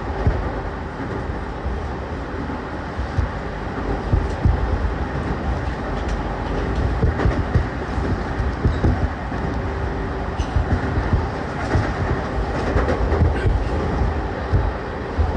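Running sound of E231-1000 series electric train motor car MoHa E231-1076, with its original traction equipment, travelling at speed: a steady wheel-and-rail rumble with a faint steady whine, heard from inside the car, and occasional light clicks from the track.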